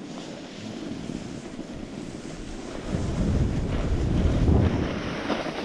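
Wind rushing over the microphone of a snowboarder's action camera while riding downhill, over the hiss of the snowboard sliding on packed snow. The wind rumble gets louder about three seconds in.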